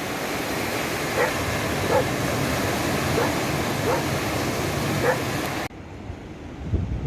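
A dog barking about once a second, six short barks, over a steady rush of wind and surf. The sound cuts off abruptly near the end, giving way to quieter wind and waves.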